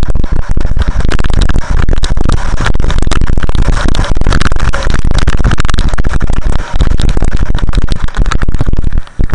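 Heavy wind buffeting and snow scraping on the microphone of an action camera moving fast down a snowy slope, loud enough to overload it into a constant crackling rush. It drops off briefly just before the end.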